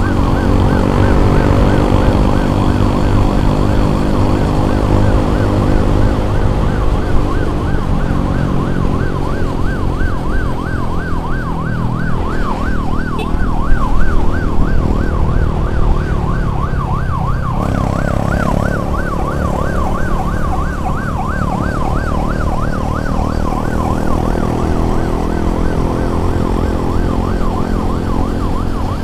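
Emergency siren sounding a fast warble, rising and falling about three to four times a second, over a vehicle engine running underneath with its pitch shifting.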